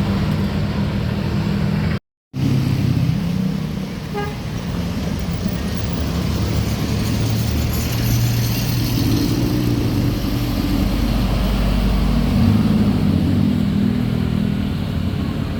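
A bus passing while sounding its multi-tone Basuri telolet horn in a series of held notes, over the deep rumble of its engine. The sound cuts out for a moment about two seconds in.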